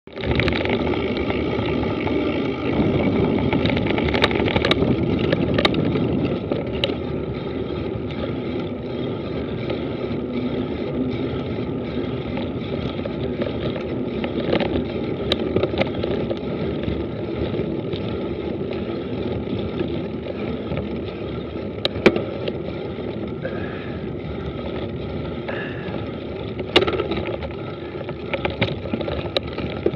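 Mountain bike rolling fast down a dirt track: a steady rush of tyre and air noise, broken now and then by sharp knocks and rattles as the bike hits bumps, the loudest about two-thirds of the way through.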